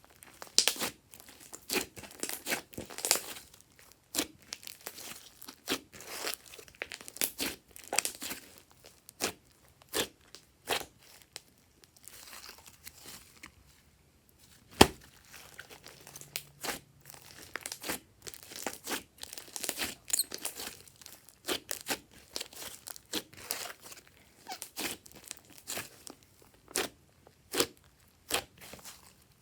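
Hands kneading and stretching glossy slime: irregular sticky clicks, pops and crackles, with one sharp pop about halfway through.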